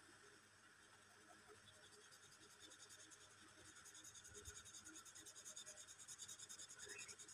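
Faint scratching of a felt-tip marker on paper: quick, rhythmic back-and-forth hatching strokes filling in a black area, getting a little louder after about three seconds.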